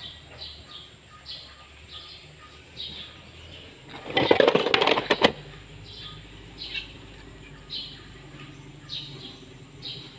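A small bird chirping over and over, short high chirps about twice a second, over a low steady hum. About four seconds in, a loud burst of noise lasts just over a second.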